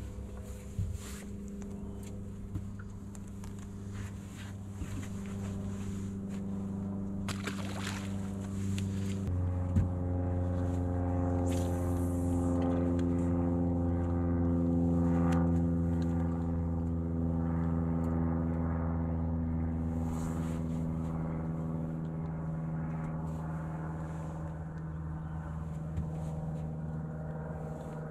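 Bow-mounted electric trolling motor humming steadily. About nine seconds in it steps up in pitch and loudness, then its pitch slowly sinks again. Light clicks from handling the fishing gear sit over it.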